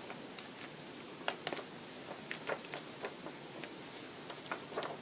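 Faint, irregular clicks and taps from cardboard and popsicle-stick pieces being handled and pressed together while gluing.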